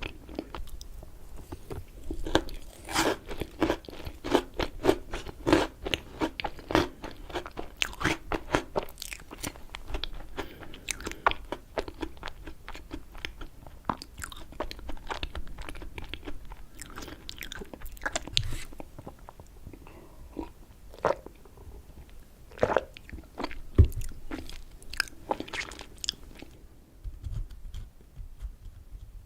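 Close-miked chewing and mouth sounds of someone eating raspberry cheesecake, a dense run of quick sharp clicks at first, growing sparser after about ten seconds, with a few louder single clicks later on.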